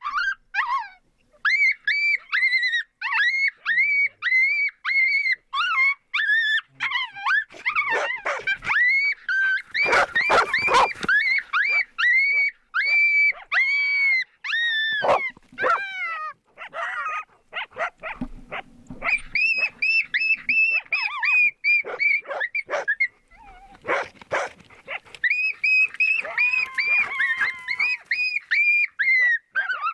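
Canines yipping and barking: a continuous run of short, high-pitched, arched yips, several a second, with a few louder, harsher barks about a third of the way through and again later on.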